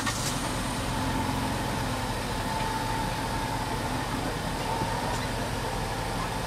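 Steady background hum and hiss, with a faint thin high tone running through it from about a second in.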